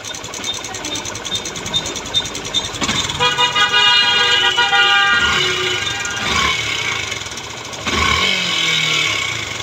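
Yamaha FZS version 3 single-cylinder engine running, the abnormal engine noise the bike was brought in for. A vehicle horn sounds for about two seconds near the middle.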